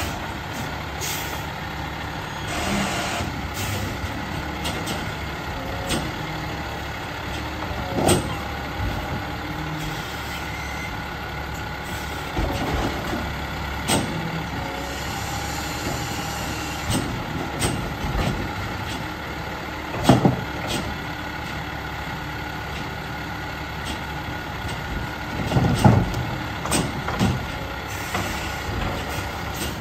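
Garbage truck with a Pac-Tech Bandit automated side-loader arm working a trash cart: the diesel engine runs under a steady hydraulic whine while the arm grabs, lifts, dumps and lowers the cart. A hiss of air comes a few seconds in, and sharp knocks of the cart and arm ring out now and then, the loudest two in the last third.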